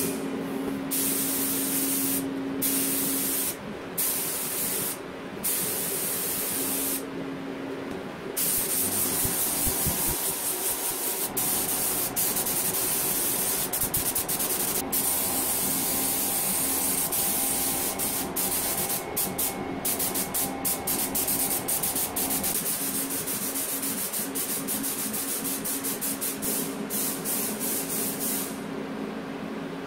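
Compressed-air paint spray gun hissing as it sprays paint onto a cast-iron jack body: a few short bursts at first, then longer passes broken by quick trigger releases.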